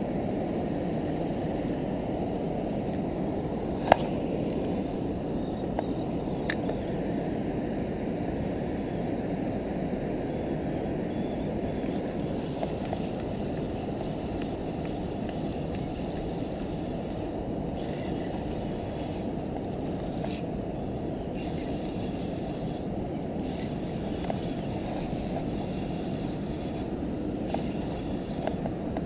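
Steady low rumble of wind buffeting the microphone. There is one sharp click about four seconds in and a fainter click a couple of seconds later.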